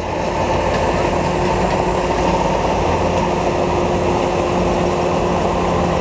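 Tracked rice combine harvester running steadily under load while it cuts lodged, flattened rice: an even engine drone with a low hum and a fainter steady tone above it.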